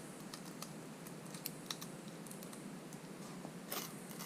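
Faint scattered clicks and small crackles as a heated touchscreen digitizer is pushed out from the back of its frame, its adhesive giving way.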